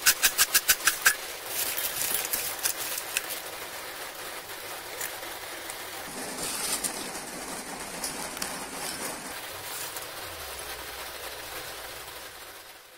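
Crisp fried potato chips tossed in a steel bowl: a rhythmic rattle about five times a second that stops about a second in, then lighter, uneven shaking until about three seconds in. After that a steady hiss, fading out near the end.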